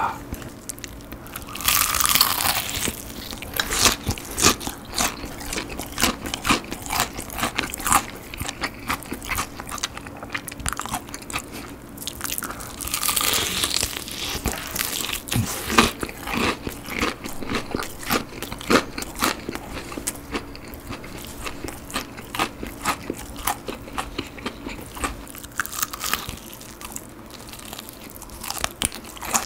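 Person biting into and chewing a crispy BBQ Golden Olive fried chicken drumstick, the fried batter crunching throughout. Two longer, louder crunching bites come about two seconds in and near the middle.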